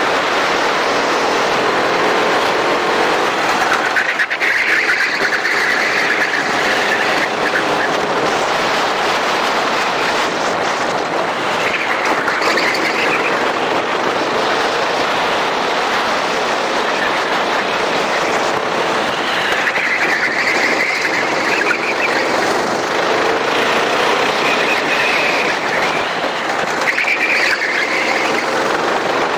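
Racing kart engine running hard and heard from on board, its pitch rising and falling again and again as the revs climb on the straights and drop for the corners, over a constant rush of noise.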